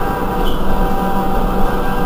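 Irisbus Cristalis ETB12 electric trolleybus standing at a stop, its on-board electrical equipment giving a steady whine of several held tones over a low hum.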